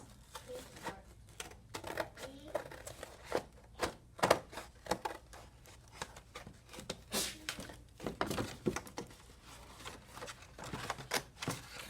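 Scissors cutting through thin cereal-box cardboard: irregular snips and crackles with rustling as the card is handled and turned.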